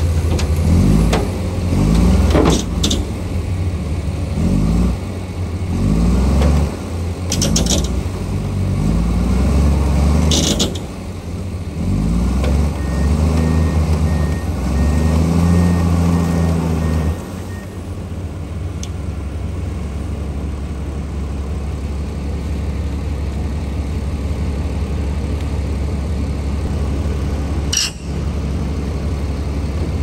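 Heavy diesel engines of a hydraulic excavator and a crawler bulldozer working under load. The engines rev up again and again for the first half, then settle to steady running. A few short sharp noises cut in, the last near the end.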